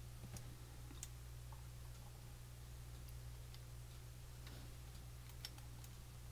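Faint, scattered light clicks and ticks of small machine screws and kit parts being handled while thread-locker is applied, over a steady low hum.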